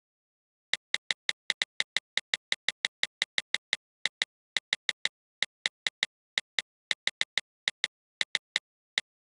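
A quick run of identical sharp clicks, about four a second with a few brief pauses, one for each brush stroke undone in a tablet drawing app.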